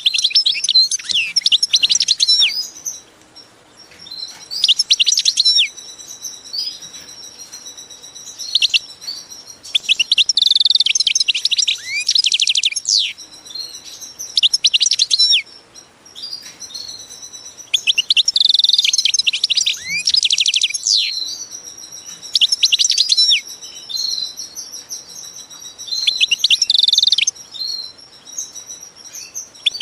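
Small birds chirping and twittering in loud bursts of quick, high notes that come every few seconds, over a steady thin high tone.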